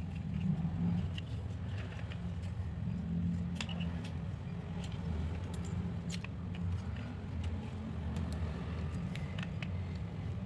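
Scattered light clicks and taps of a small plastic selfie-stick tripod being handled, over a steady low hum.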